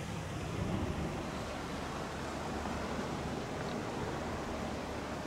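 Wind rumbling on the microphone over the steady drone of a distant Cessna 182A's single piston engine as it rolls along the runway.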